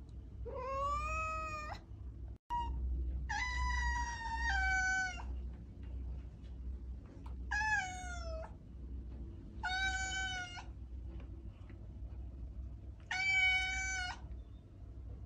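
Domestic cat meowing: five drawn-out meows a few seconds apart, the second the longest, over a steady low hum.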